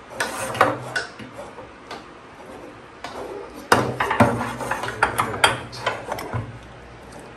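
Braided sprayer hose of a Moen Adler pull-down kitchen faucet being pulled through the faucet body, with metal clicks and rattles against the faucet and the stainless steel sink. The sounds come in two bunches: a short one at the start and a longer, louder one a few seconds in.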